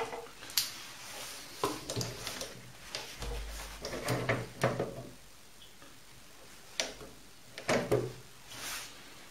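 Scattered metallic knocks and clicks from hands handling a small workpiece and tools at a stopped metal lathe's three-jaw chuck and tool post, in several short clusters with pauses between.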